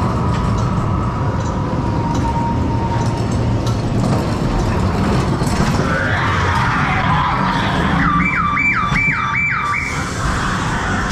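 Ghost train dark ride with a steady low rumble throughout. About eight seconds in, a siren-like electronic alarm effect gives five quick rising whoops, about two and a half a second, before it stops.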